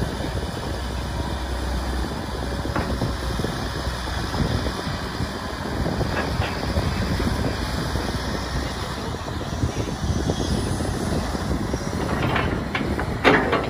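Kobelco SK250 hydraulic excavator running steadily under load as it digs soil and swings to load a dump truck. Near the end there are a few sharp knocks as the bucket digs back in, the loudest just before the end.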